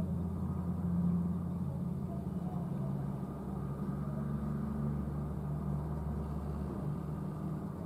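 Petrol dispenser's pump motor running with a steady low hum while fuel is pumped into the car through the hose; the deepest part of the hum stops about seven seconds in as refuelling ends.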